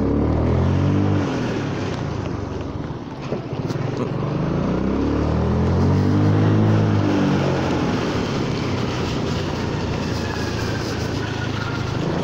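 Honda Forza 300 scooter's single-cylinder engine revving up under acceleration and easing off again, twice, over a steady hiss of tyres and rain on a wet road.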